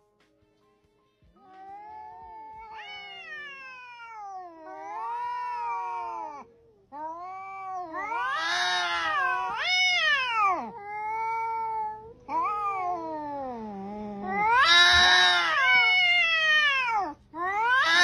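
Two cats yowling at each other in a face-off: long, wavering yowls that rise and fall in pitch, starting about a second and a half in and getting louder toward the end. This is the drawn-out caterwaul of a cat confrontation.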